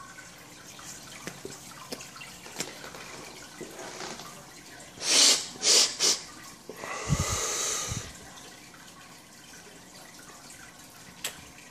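Faint, steady trickle of aquarium water running throughout. About halfway through come three short, loud breathy bursts close to the microphone, then a longer breath out.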